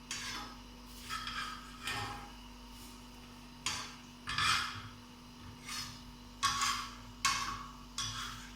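A cooking utensil scraping and clinking against a hot tawa while guava pieces are stirred and turned over: about ten short, irregularly spaced strokes.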